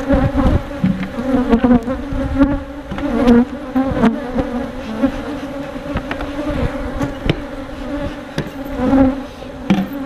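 Many honeybees buzzing in flight around the microphone, a steady droning hum that wavers slightly in pitch. The colony is stirred up after its hive was opened and worked. Low rumbling thumps and a few sharp clicks sound underneath.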